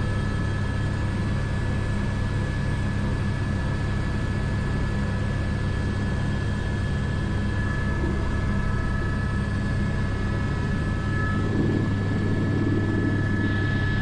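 Airbus AS350 B3 helicopter's single turboshaft engine and rotor running steadily, heard inside the cockpit: a constant low rotor drone with a thin, steady turbine whine above it.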